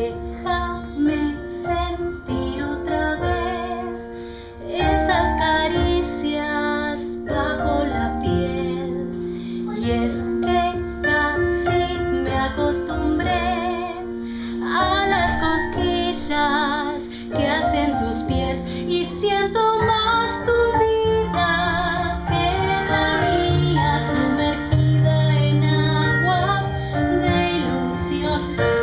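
Music: a song with a woman singing over piano and keyboard.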